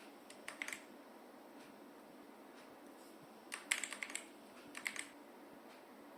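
Keys of a Vortex GT-6 mechanical keyboard clicking in three short bursts: a few keystrokes about half a second in, a quicker run of them near the middle, and a couple more about a second later.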